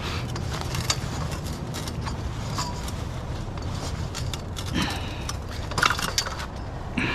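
Scrap metal being handled: scattered clinks and light clanks, with a few sharper knocks about two and a half, five and six seconds in, over a steady low hum.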